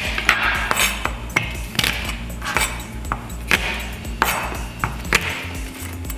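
Chinese cleaver chopping garlic cloves on a wooden cutting board: a run of sharp knocks, one or two a second.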